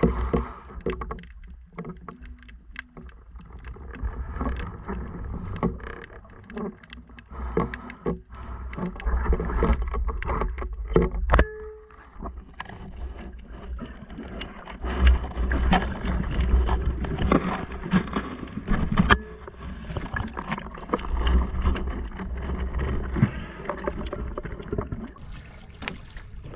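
Water sloshing and moving around a camera held in the water, muffled, with scattered clicks and knocks and low rumbles that swell and fade irregularly.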